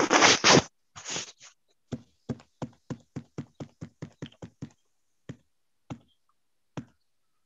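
Light fingertip taps on a phone's touchscreen keyboard, about three or four a second for a few seconds, then three slower taps. A short rustle comes at the start.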